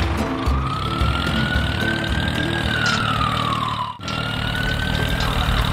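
Model tractor engine running with a steady low rumble. A whistling tone over it rises slowly, then falls. The sound breaks off for a moment about four seconds in and carries on.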